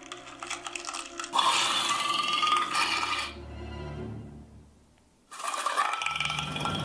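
Soundtrack music and sound effects. A loud stretch fades away to a short near silence about five seconds in, and then the sound cuts back in suddenly.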